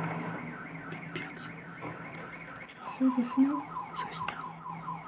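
A parked car's alarm sounding after a low-speed bump: a rapid repeating chirp, about five a second, which gets louder about three seconds in.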